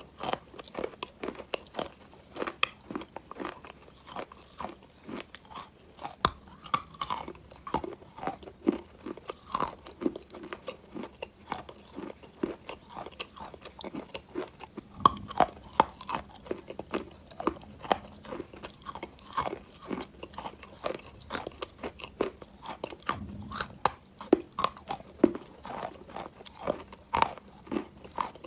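Close-up crunching and chewing of wet chalk soaked in clay water: a dense run of short, sharp crunches, several a second.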